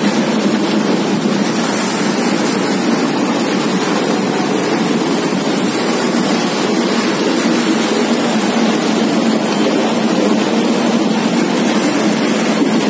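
Steady, loud machinery noise from a running chips production line: motors and rotating drums going together without a break or distinct knocks.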